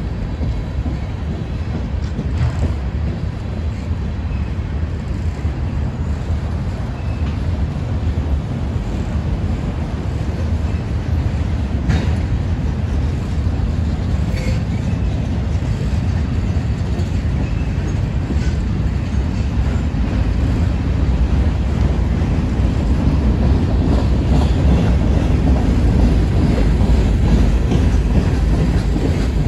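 Norfolk Southern freight train rolling past: a steady, loud rumble of the cars, with a few sharp clicks of wheels over the rails.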